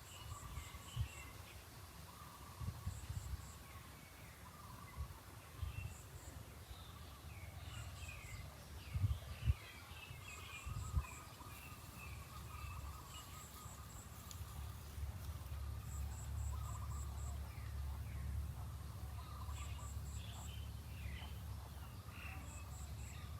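Outdoor nature ambience: small birds chirping, a steady insect drone, and short runs of high ticking that recur every second or two, over a low rumble with a few dull thumps about nine to eleven seconds in.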